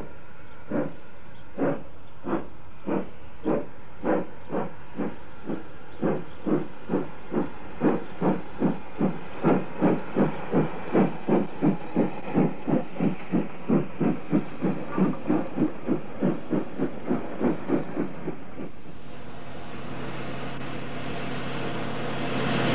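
P-Class steam tank engine pulling away with its train, its exhaust beats starting slowly and quickening to about three a second as it gathers speed. About nineteen seconds in the beats stop and a steady hiss of steam takes over, growing louder near the end.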